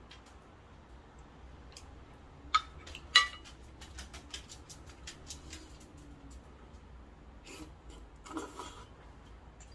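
Tableware being handled: two sharp ringing clinks about two and a half and three seconds in, then lighter clicks of chopsticks and bowl. Near the end, a short rushing slurp of noodles being sucked up from the bowl.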